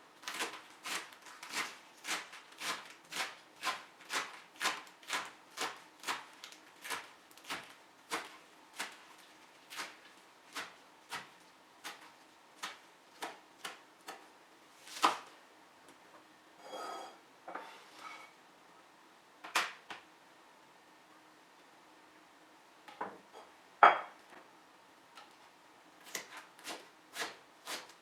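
Knife chopping on a wooden cutting board in a steady rhythm of about two strokes a second. It stops about halfway, leaving a few separate knocks and a brief scrape, then starts again near the end.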